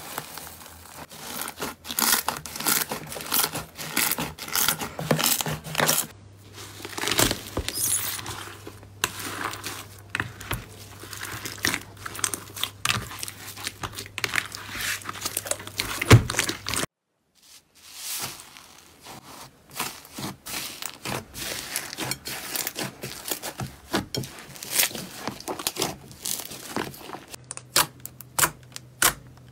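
Hands squeezing, stretching and poking slime, making a dense run of sticky crackles and pops. There is a short silent gap about seventeen seconds in, and sharper, quicker clicks near the end.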